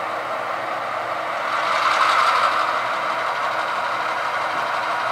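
Simulated diesel engine sound from an HO scale model locomotive's sound decoder as the locomotive moves off, swelling about two seconds in and then settling, with a faint tone repeating about twice a second.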